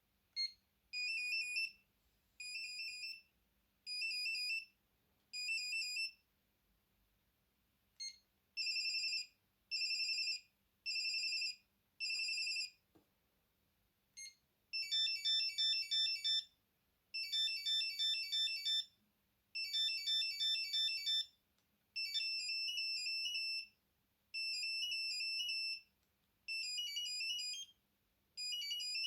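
Alcatel One Touch Easy mobile phone playing its built-in monophonic ringtones one after another as they are scrolled through: high, thin electronic beeping tunes, each new one preceded by a short key beep. The first tunes are repeated short bursts of beeps, about one a second; the later ones are quicker runs of notes.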